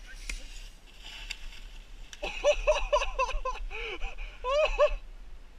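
A high-pitched voice giving a run of short, quick yelps or laughs starting about two seconds in and again near the end, over a faint steady hiss.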